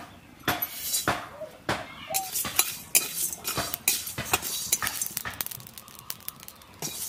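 Metal spatula scraping and clinking in an aluminium kadai, stirring whole spices as they roast. The strokes come irregularly, several a second.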